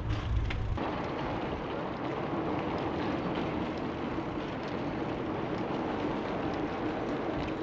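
Riding noise from a loaded touring bicycle on a city street: a steady rush of tyre and wind noise. A heavy low wind rumble on the microphone cuts off within the first second.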